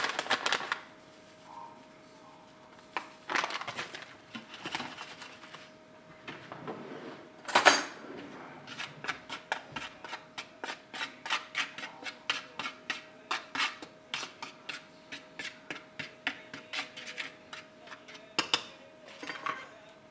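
A metal spoon scraping and tapping on a metal baking sheet as dry fish batter mix is stirred, in quick, even strokes about three a second through the second half. There is a rustle near the start and one louder clatter about a third of the way in.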